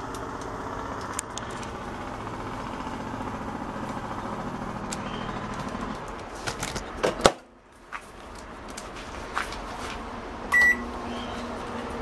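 Emerson microwave oven humming steadily. A few knocks and a clatter come about seven seconds in, then one short, loud keypad beep about ten and a half seconds in.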